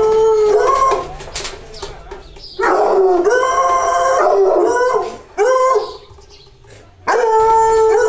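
American Foxhound baying: long, drawn-out howls that waver in pitch, one ending about a second in, a longer one from about two and a half seconds to five, a short one after it, and another starting near the end.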